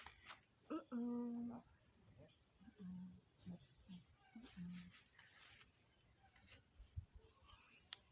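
Faint, steady high-pitched chirring of insects, with a short pitched vocal call about a second in and a few brief low hums between about three and five seconds.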